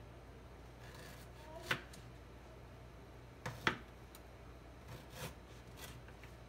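Kitchen knife chopping fresh ginger root on a plastic cutting board: a few sharp knocks of the blade against the board, one about two seconds in, a quick pair near the middle, and fainter ones later. A steady low hum runs underneath.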